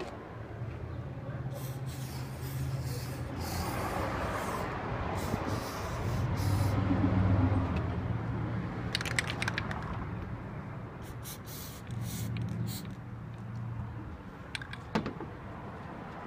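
Aerosol can of Plasti Dip rubber coating spraying in several bursts of hiss, over a steady low hum.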